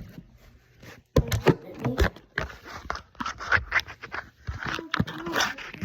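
Irregular scraping, rustling and clicking of shirt fabric being handled, with a small bird moving inside it.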